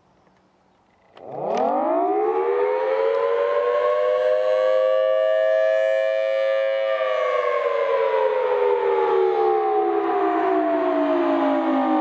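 Federal Signal Thunderbolt 1003 dual-tone outdoor warning siren starting about a second in, winding up quickly to a steady two-tone wail, holding for several seconds, then winding slowly down toward the end. This is a short test growl, a brief wind-up and wind-down.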